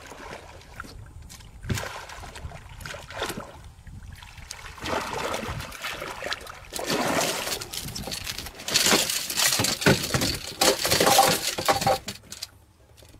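A hooked giant snakehead (toman) thrashing and splashing at the water's surface as it is fought to the boat. The splashing comes in irregular bursts that grow louder, most intense in the last few seconds, then stops.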